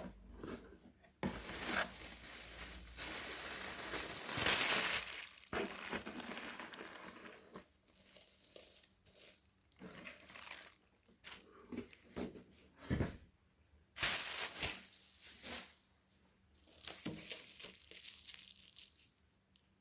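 Packaging being unwrapped by hand: irregular crinkling and tearing of wrapping. It is loudest and most continuous in the first few seconds, then comes in shorter bursts with a few light knocks.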